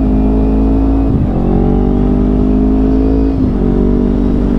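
Kawasaki Ninja 250R's carbureted parallel-twin engine running at a steady cruising speed. Its note breaks and shifts in pitch briefly twice, about a second in and again about three and a half seconds in.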